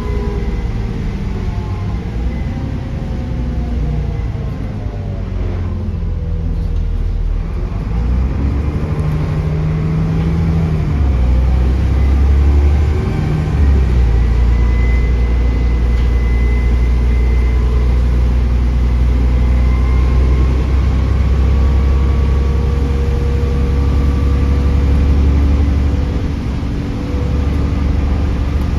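Stagecoach double-decker bus's diesel engine heard from on board while driving: the engine note falls over the first few seconds, picks up again from about eight seconds in, then runs steadily under a loud low rumble. A thin high turbo whistle sounds over the engine.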